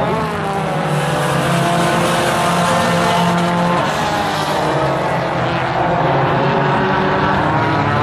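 Several Tuner-class race cars running laps together, their engines at high revs, with overlapping pitches rising and falling as the cars pass.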